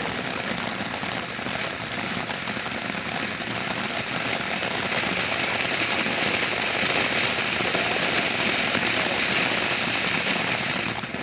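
A lit ground firework giving off a continuous, dense crackle and hiss that builds up and then cuts off abruptly near the end.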